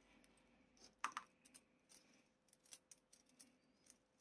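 Faint scattered clicks and light rattles of plastic model-kit sprue frames being gathered up and cleared away by hand, the clearest click about a second in.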